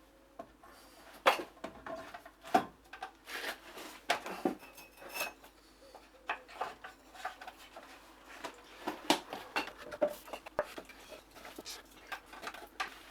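Carpentry hand work: irregular knocks and light metallic clinks of hand tools against oak timber and each other, some strikes ringing briefly.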